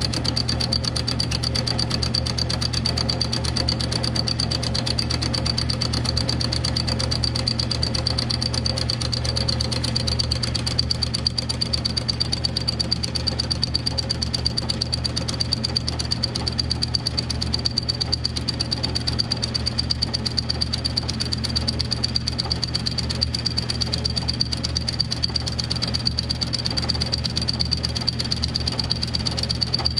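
Milling machine running with its cutter skimming the deck face of a Kawasaki X2 650 jet ski cylinder: a steady motor hum and high whine with rapid, even ticking from the cut.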